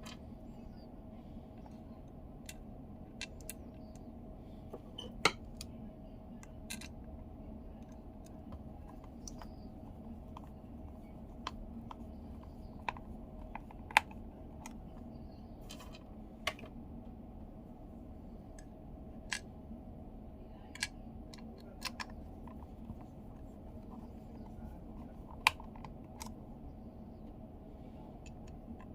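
Irregular sharp clicks and taps of small plastic parts of a car multimedia control knob being handled, over a steady low hum.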